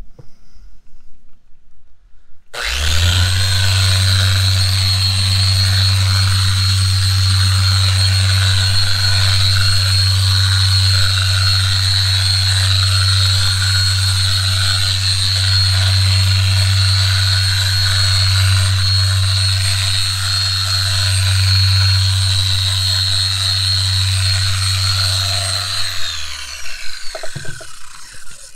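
Porter-Cable electric polisher with a wool buffing pad, switched on a couple of seconds in and running steadily on gelcoat, a high whine over a low hum. It winds down and stops near the end.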